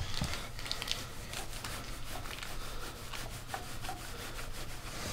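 Block of cheese grated on a flat metal hand grater: quick, even rasping strokes, several a second.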